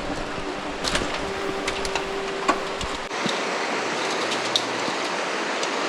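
Steady rushing of a mountain stream or waterfall, with a few faint clicks. A low rumble under it drops away about three seconds in.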